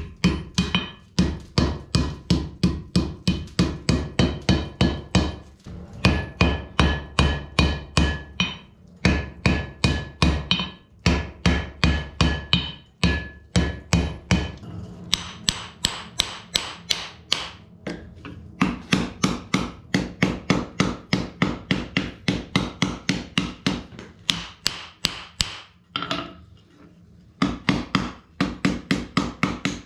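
Hand hammer striking a red-hot iron bar on an anvil in quick, steady blows, about two to three a second, each blow with a ringing metallic note. The blows come in runs broken by short pauses, with a low steady hum beneath them in the middle stretch.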